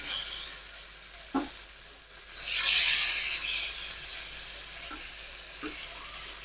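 Trevally pieces frying in hot oil, with a steady sizzle that swells louder for about a second around two and a half seconds in. There are a few light knocks.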